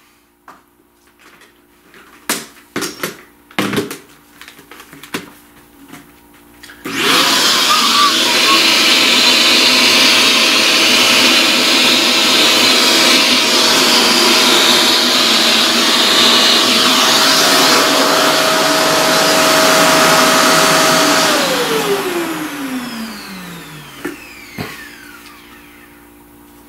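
A few clicks and knocks of handling, then a vacuum cleaner is switched on. It spins up at once and runs steadily for about fourteen seconds, clearing pastel dust off a drawing. It is then switched off and winds down with a falling pitch over a few seconds.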